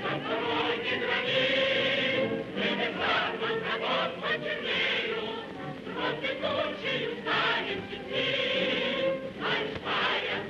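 A choir singing, as the film's music score, with held notes rising and falling.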